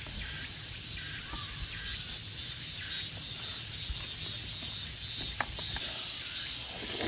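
Insects chirring steadily, with a few faint clicks and mouth sounds from eating soup with chopsticks.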